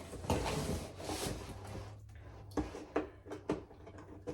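Unpacking noise from handling the animatronic's parts and packaging: a stretch of rustling and rubbing, then a few short knocks.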